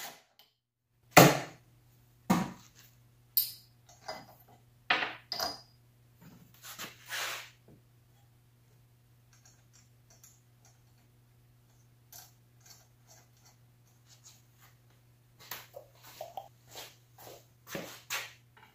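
Metal parts and hand tools clicking and knocking as parts are fitted to a small snowblower engine on a workbench: several sharp separate knocks in the first seven seconds, a quiet spell, then a run of lighter clicks near the end.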